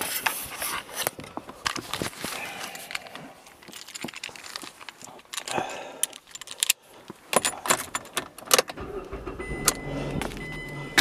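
Keys jangling, with irregular clicks and rattles of handling. About nine seconds in, a low steady rumble sets in together with a thin steady high tone.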